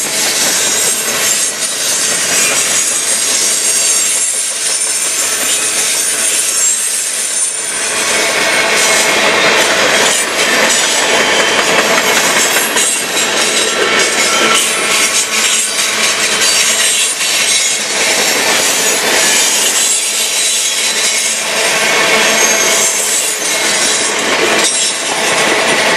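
Freight cars of a mixed freight train rolling past close by: steady wheel-on-rail rumble and rattle, with quick clicks as the wheels cross the rail joints and a high wheel squeal coming and going. The noise grows louder after about eight seconds.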